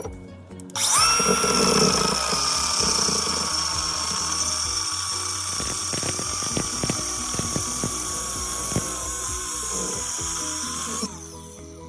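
Power tool cutting through an old water pipe: a steady high-pitched whine starts about a second in, sags a little in pitch as it bites, with scattered clicks midway, and cuts off suddenly near the end.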